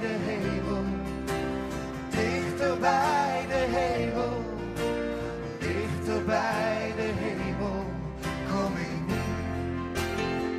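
Background music: a song with a singing voice over instruments and a beat.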